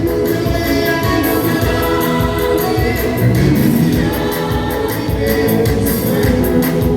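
Choir singing a gospel song over instrumental backing with a steady beat.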